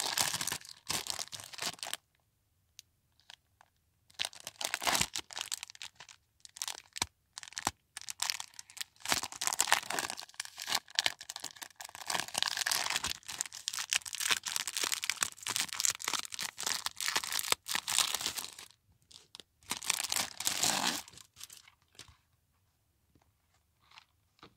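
Hands handling a spiral-bound ring notebook, its covers rubbed and turned over, giving crinkling, rustling noise in bursts. The longest stretch of rustling runs through the middle, and it dies away to a few faint rustles near the end.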